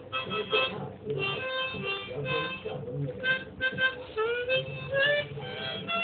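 Harmonica played hands-free, held in the mouth: a run of short notes and chords, with a few notes bent upward about four and five seconds in.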